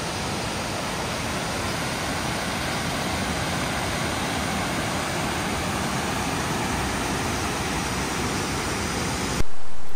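Mountain stream cascading over rocks: a steady rush of water. Near the end it cuts off suddenly and a louder sound takes over.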